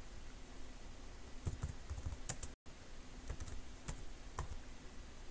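Computer keyboard keys being typed: a short run of key clicks starting about a second and a half in and stopping about a second before the end, broken by a moment of dead silence in the middle.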